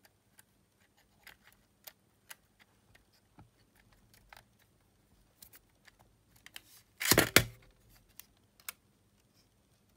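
Small plastic and metal clicks and taps from a Sony WM-EX900 cassette Walkman's middle frame being pressed back into place by hand, with a louder clatter about seven seconds in as the player is handled and turned over.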